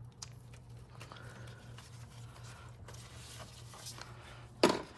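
Faint rubbing and small clicks of hands and tools working on a car's engine bay over a steady low hum, with one sharp, loud clack near the end.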